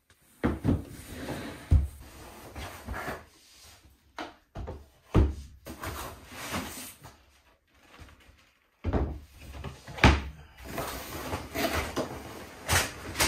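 Irregular wooden knocks and clatter of flat-pack bed panels and parts being handled and set down, with a short lull about eight seconds in.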